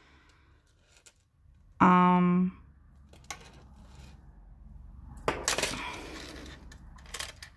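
Napier gold-tone rope chain and filigree cross pendant clinking and rattling as they are handled, with a few sharp clicks and a longer jingle of the chain a little past the middle. A short hummed note from a voice about two seconds in.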